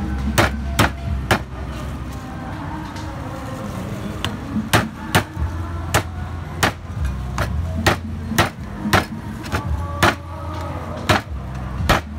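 A cleaver chopping meat on a wooden block: sharp, irregular knocks, up to about two a second, with a pause of a couple of seconds near the start. A steady low hum runs underneath.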